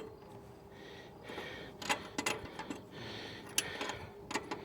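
Sharp metallic clicks and clinks of a wrench working the exhaust back pressure sensor loose, with a few breaths of heavy breathing between them.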